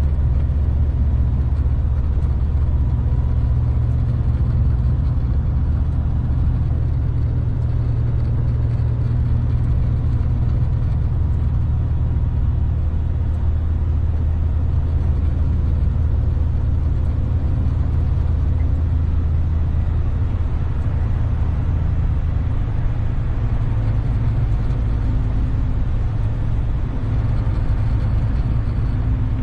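Heavy truck's diesel engine running steadily at cruising speed, heard inside the cab as a constant low drone mixed with road noise.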